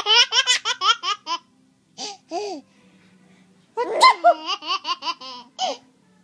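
Baby boy laughing in rapid, high-pitched bursts of belly laughter: one bout at the start, two short laughs about two seconds in, and a second bout from about four seconds in.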